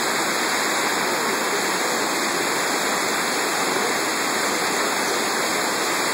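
Whitewater rapids of a fast mountain river rushing over boulders, a steady, even water noise.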